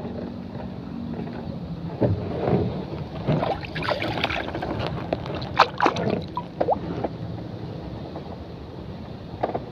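A small engine running with a steady low drone, with scattered knocks and short scraping noises in the middle of the stretch.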